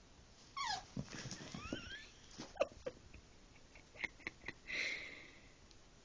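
Small dogs play-fighting: a high whine that falls in pitch, then rising whimpers and a couple of short yips, with scuffling noises in between.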